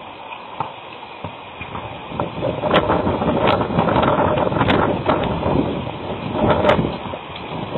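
Horses galloping and playing in a dirt corral: a rumble of hoofbeats with several sharp thuds, swelling about two seconds in. It is heard through a security camera's small, thin-sounding microphone.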